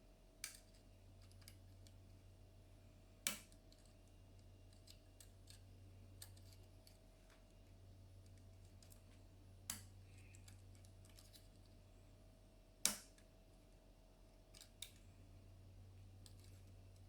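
Small metallic clicks of a Lishi 2-in-1 HU66 pick-decoder working the wafers inside a VW Touareg door lock cylinder as the lock is picked closed. Faint ticking with a handful of sharper clicks at irregular intervals, over a steady low hum.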